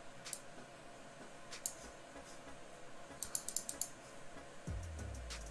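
Faint computer keyboard and mouse clicks: a few scattered clicks, then a quick run of about six keystrokes a little past three seconds in, as a value is typed into a field. Near the end, low background music with a guitar comes in.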